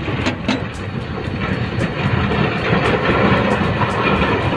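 A large engine running steadily at a constant speed, with two sharp clicks in the first half second.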